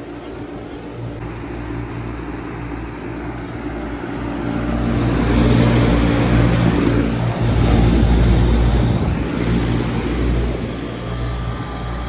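A 1995 Bard 5-ton wall-hung heat pump running in heat mode: a steady low compressor hum with the outdoor fan moving air through the coil. The sound swells louder for a few seconds in the middle and eases off again.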